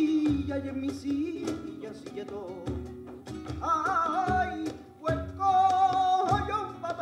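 Live flamenco guajira: a singer's long, wavering held notes over Spanish guitar, with sharp percussive strokes from hand percussion and handclaps (palmas).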